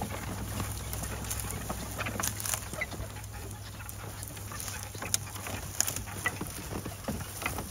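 A pony pulling a light driving cart over grass: scattered hoof thuds and short clicks and rattles from the cart, over a steady low rumble.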